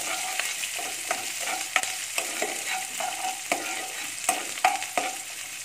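Onions, curry leaves and green chillies sizzling in hot oil during the tempering (tadka) stage, with a steel spoon scraping and clinking against the pan about twice a second as it is stirred.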